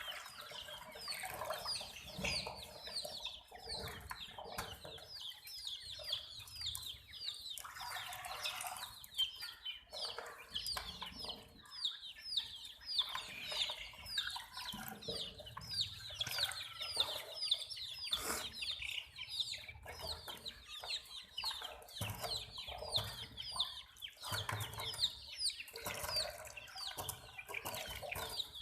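A group of baby chicks peeping continuously: a dense chorus of short, high chirps that fall in pitch, with a few light clicks among them.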